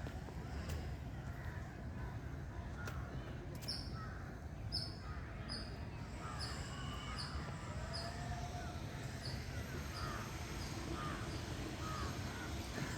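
Birds calling over a steady low rumble: crows cawing, and from about four seconds in a thin, high, short note repeated about twice a second that gradually fades.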